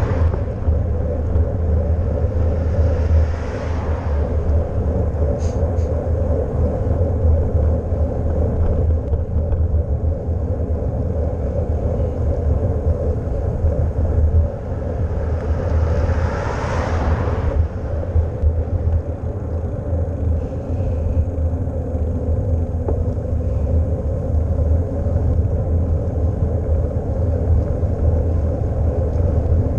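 Steady wind noise on a GoPro's microphone while cycling, over road and tyre noise. Twice, a few seconds in and again about halfway through, a vehicle goes by with a rush that swells and fades.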